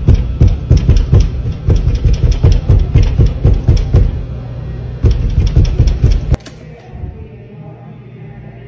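Loud, rapid pounding on a closed door, several blows a second. It breaks off about four seconds in, starts again a second later, then stops suddenly around six seconds in.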